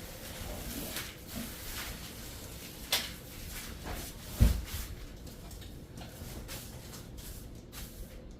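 Rustling and handling of flooring underlayment padding, with a sharp knock about three seconds in and a heavy thump about a second and a half later.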